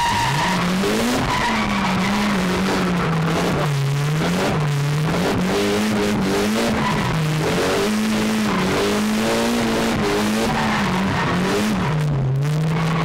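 Drift car's engine revving up and down over and over as the car slides through linked corners, with steady tyre noise from the sliding tyres, heard from inside the cabin.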